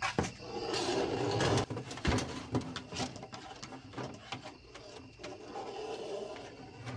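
Electrical cable and a fish tape being pulled through a hole in a travel trailer's wall: a scraping drag lasting about a second near the start that stops suddenly, then scattered clicks and rustles of the cable handled at the hole, with a softer drag near the end.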